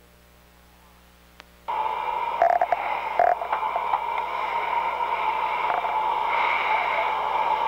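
Faint mains hum, then about two seconds in an intercom channel cuts in with a sudden, steady, tinny hiss and a few small clicks, the sound of an open oxygen-mask microphone line.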